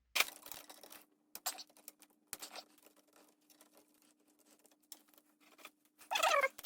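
Scattered light clicks and rustling from hands working on a cassette deck's mechanism and small parts, busiest in the first couple of seconds and then mostly quiet.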